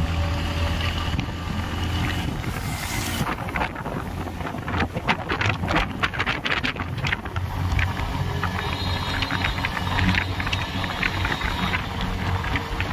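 Motorcycle engine running steadily at a cruising speed of about 55 km/h, a low even hum, with wind on the microphone; about four to seven seconds in the wind turns into a rough crackle.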